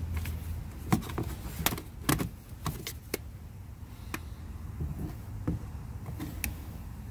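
Handling noise: a string of sharp clicks and knocks as the camera and a handheld work light are moved about under a car, over a steady low hum.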